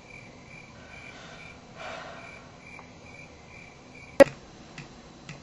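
A cricket chirping steadily, about two and a half chirps a second. The chirping stops at a sharp click about four seconds in.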